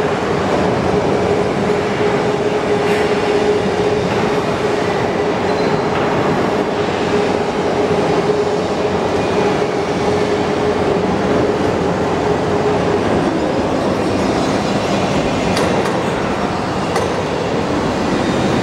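10-ton single-girder electric overhead crane travelling along its runway: a steady electric drive-motor whine over the rumble of steel wheels on the rails. About two-thirds of the way through, the whine drops to a lower pitch, and a few sharp clicks come near the end.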